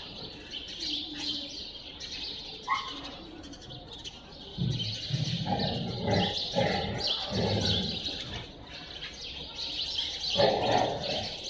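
Small birds chirping continuously in quick, high-pitched bursts. A louder, lower muffled sound comes in about halfway through and again near the end.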